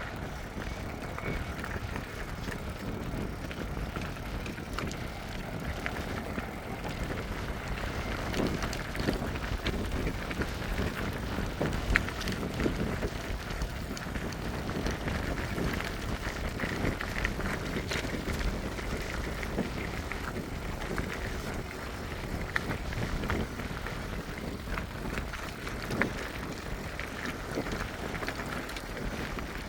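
Heavy earthmoving machinery running across a construction site, a steady engine drone with scattered clanks, the sharpest about twelve seconds in and again near the end. Wind buffets the microphone.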